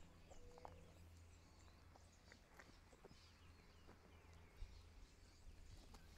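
Near silence with faint, scattered bird chirps over a low steady hum.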